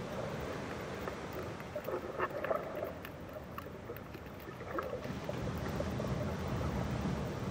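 Muffled water noise picked up by a camera held underwater: a steady low rumble, with a few short gurgles about two seconds in and again near five seconds.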